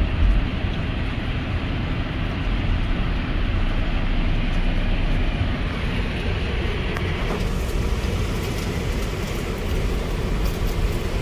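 Steady road noise inside a moving truck's cabin: a low drone of engine and tyres on the road, with a brighter hiss joining about seven seconds in.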